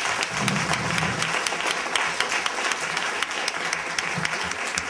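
A seated audience applauding, many hands clapping steadily.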